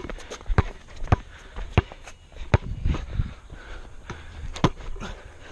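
A basketball is dribbled on an outdoor asphalt court. The bounces come as sharp thuds about every half second to three-quarters of a second, mixed with sneaker steps. A louder knock comes near the end, around the shot at the hoop.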